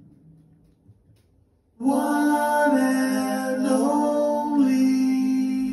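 Near silence for about two seconds, then a man's singing voice starts suddenly. He holds long, steady notes, moving to a new pitch about once a second.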